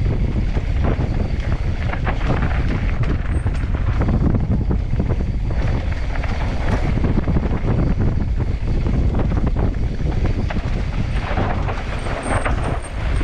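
Wind buffeting the microphone of a mountain bike's onboard camera on a fast dirt-trail descent. Under it are the tyres on dirt and the bike's rattling and knocking over bumps, in many short sharp clicks.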